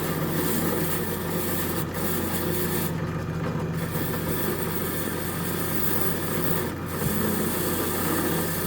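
Bench grinder running steadily with a bolt worked against its wheel to polish off the sandblasted finish: a motor hum under a loud, even hiss that thins briefly a few times.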